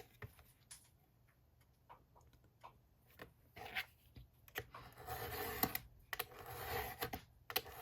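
Pieces of book board and paper being handled and rubbed together: a few faint taps, then scraping and rustling from about halfway in.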